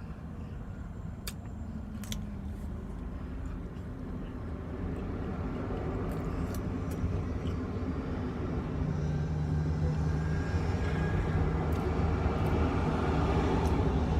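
Low engine rumble that grows steadily louder, with a steady low hum joining it about nine seconds in, and a couple of faint clicks in the first two seconds.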